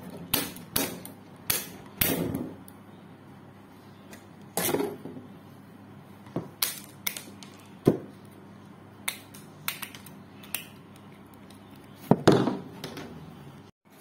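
Hand wire cutters snipping through welded wire mesh: irregular sharp metallic snips and clicks, with a louder rattle of the mesh about twelve seconds in.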